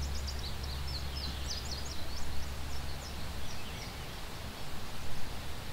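A small bird chirping: a quick run of short, high, falling notes through the first three seconds or so, thinning out after that, over a steady low background hum.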